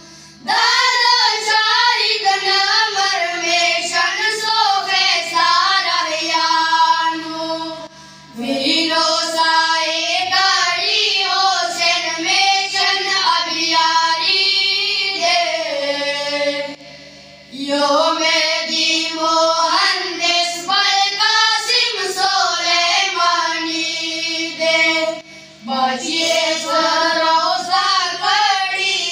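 Boys' voices singing a Pashto noha (devotional lament) together into microphones, without instruments, in long melodic phrases with three short breaks between them.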